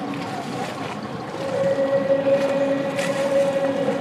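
A boat engine drones steadily on the river, with water and wind noise; it grows a little louder about a second and a half in.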